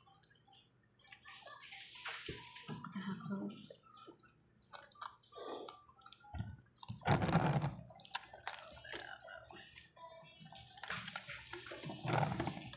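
Two-week-old pug puppy suckling milk from a feeding syringe: irregular wet smacking and slurping. About seven seconds in there is a louder burst of handling rustle and knocking.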